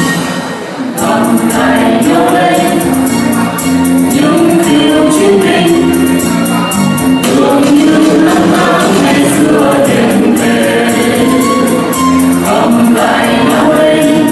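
A mixed men's and women's vocal group singing a Vietnamese song together into microphones over instrumental accompaniment with a steady beat, after a brief lull in the first second.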